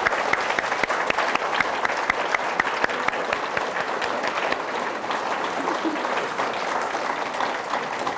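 Audience applauding, many people clapping at a steady level.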